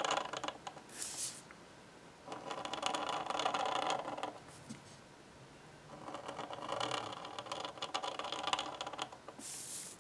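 Steel G-pen nib scratching across paper in inking strokes: two longer stretches of scratching, one of about two seconds and one of about three, with short hisses about a second in and near the end.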